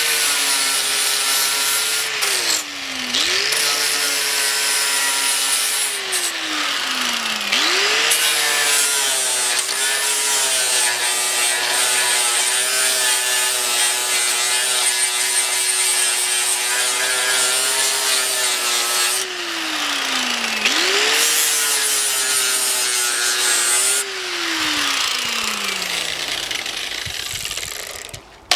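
Hand-held electric angle grinder grinding down the welds on a sheet-steel tailgate patch: a motor whine with a grinding hiss on top. The motor's pitch drops and picks back up three times, then winds down and stops near the end.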